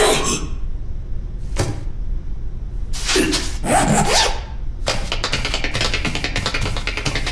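Cartoon dance sound effects: a single swish about one and a half seconds in, a louder swishing passage around three to four seconds, then a fast run of clicking taps from about five seconds in, like tap-dance steps.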